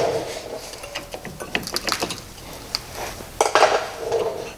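Metal clinking, knocking and short scrapes as a VW Polo 6R's front brake caliper is worked off the disc and carrier, with two louder clusters of clatter partway through.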